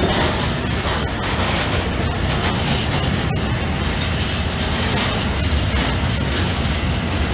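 Freight train of covered goods wagons rolling past at close range: a steady, loud rumble and rattle of steel wheels on the rails.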